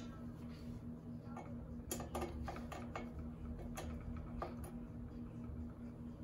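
Screwdriver tightening screws into a ceiling fan's metal motor housing: scattered light clicks and ticks of metal on metal, a few seconds apart.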